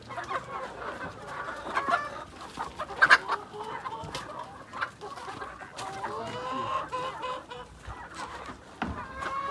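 A flock of laying hens clucking and calling, many birds overlapping, with one louder sharp sound about three seconds in.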